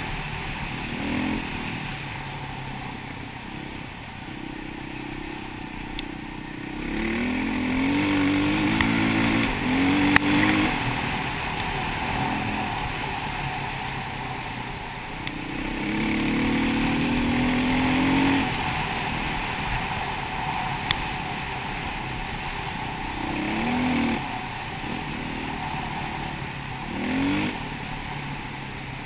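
KTM 525 EXC enduro motorcycle's four-stroke single-cylinder engine, riding off-road, its revs rising and falling again and again as the throttle is opened and closed. It is heard from a helmet-mounted camera over a steady rush of wind, with a couple of sharp knocks.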